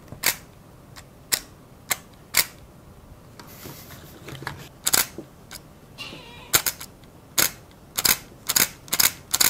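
A Canon EOS 35 mm film SLR body clicking over and over as it is worked: about a dozen sharp mechanical clicks, sparse at first and coming faster near the end, with a short whirr in between. The camera has sat unused for a long time and its sticky mechanism is coming back to life after a fault that made it show a dead battery.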